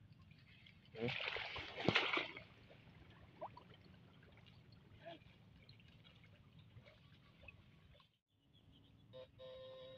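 Hands splashing and sloshing in shallow muddy water for about a second and a half, about a second in, while grabbing a snakehead, followed by faint dripping and trickling. Background music with steady tones comes in near the end.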